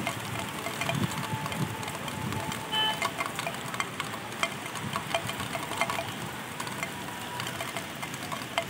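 Light rain falling over rooftops: a steady background hiss with scattered ticks of drops. A brief tone sounds about three seconds in.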